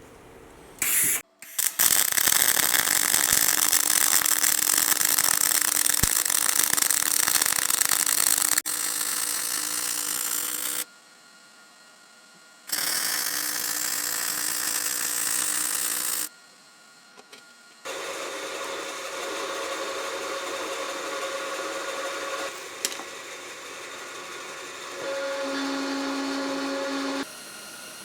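Electric power tool running and working steel, a dense steady noise over a motor hum, in several stretches that start and stop abruptly with short quiet gaps between them.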